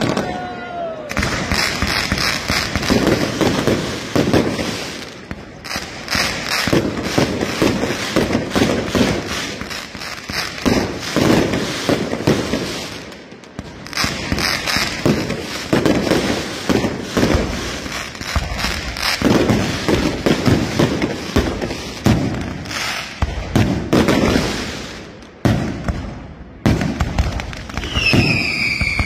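Night mascletà fireworks: a dense, continuous barrage of bangs and crackling bursts with a few brief lulls. Near the end come falling whistles from whistling fireworks.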